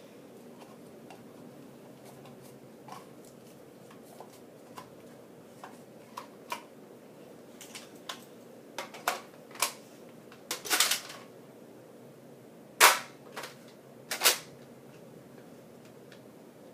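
Nerf foam-dart blaster being loaded and fired: scattered light plastic clicks, then louder sharp snaps, the loudest two about thirteen and fourteen seconds in.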